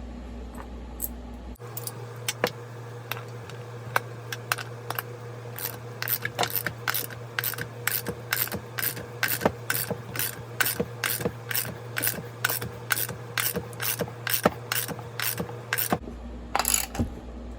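Ratchet wrench clicking in a long, even run of strokes, about two to three clicks a second, over a steady hum, as it turns a bearing installer that draws a new crank bearing into the chainsaw's crankcase half.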